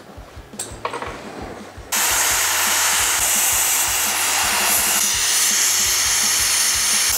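Air-arc gouger blasting away old steel at a hull stringer joint: a loud, steady rushing hiss of compressed air and arc that starts abruptly about two seconds in, after a few light clicks.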